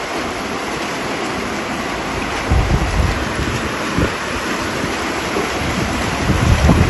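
Heavy rain pouring steadily, with a few deep rumbles rising through it, the strongest near the end.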